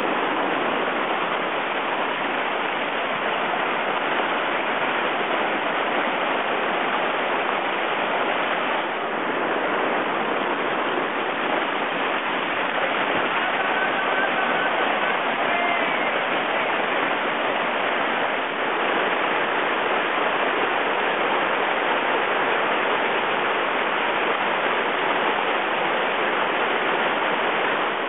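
Steady rush of river rapids: white water churning over rocks, loud and even.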